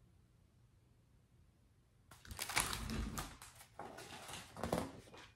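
Paper pages of a hardcover picture book rustling and flapping as a page is turned and the book is handled, starting about two seconds in.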